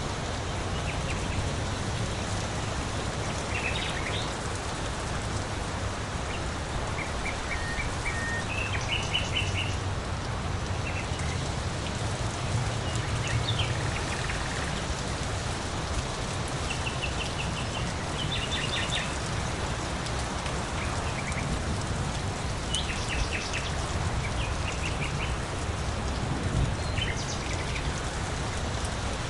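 Steady rain falling, with birds giving short runs of quick, high chirps every few seconds.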